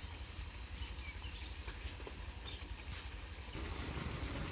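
Pork slices frying in a wok over a gas burner: a steady sizzling hiss with scattered small pops, growing louder and fuller about three and a half seconds in.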